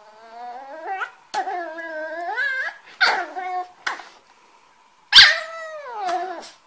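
Cavalier King Charles Spaniel puppy giving a run of drawn-out whining howls that waver up and down in pitch. The loudest comes about five seconds in.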